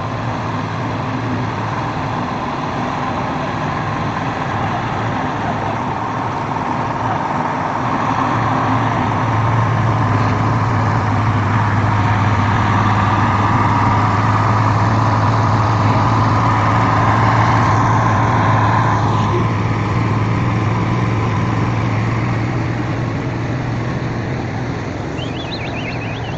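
Heavy truck engine running steadily under load. Its low drone swells louder through the middle and then eases off near the end.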